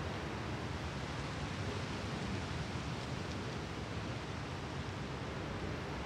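Steady seashore ambience: an even wash of surf on the shore, with no single wave standing out.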